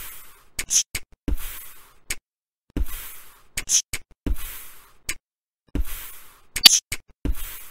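Sparse electronic drum beat: a deep kick with a hissing tail about every second and a half, and sharp, snappy hits in between.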